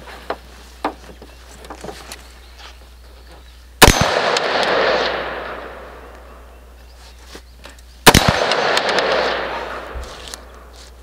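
Two rifle shots from a Ruger AR-556 in 5.56, about four seconds apart, each a sharp crack followed by about two seconds of echo dying away. A few faint clicks of handling come before the first shot.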